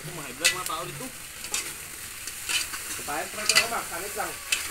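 Metal spatula stirring meat frying in a black pot over a wood fire, scraping and knocking against the pot about once a second, with the meat sizzling.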